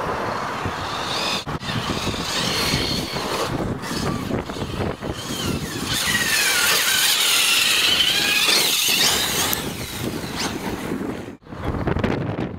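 Brushless Neu motor of a Baja 5b RC car whining as it is driven, its pitch rising and falling with the throttle over a steady rushing noise.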